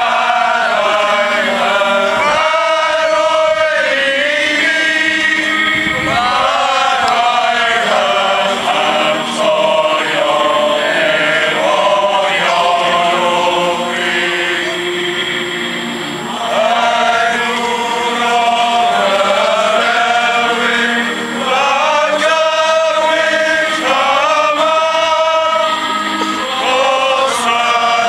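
A choir singing in long phrases, male voices prominent, with short breaks between phrases.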